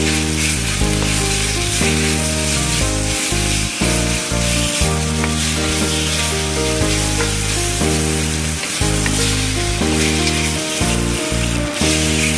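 Thin slices of marinated beef sizzling steadily in a hot wok as wooden chopsticks stir them, with background music of held notes underneath.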